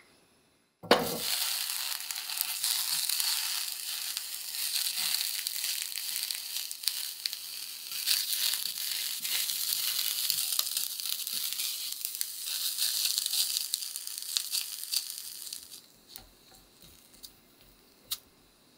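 Sausages sizzling and crackling in a hot frying pan, starting abruptly about a second in and cutting off suddenly near the end.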